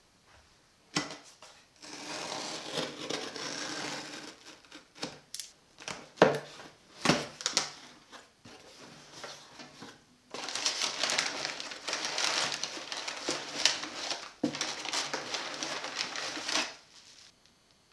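A cardboard shipping box being opened by hand: a few sharp knocks and scrapes from the box and its flaps, then crumpled brown kraft packing paper rustling and crinkling for about six seconds as it is pulled out.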